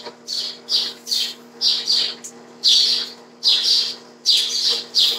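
A bird calling over and over in short chirps, about two a second.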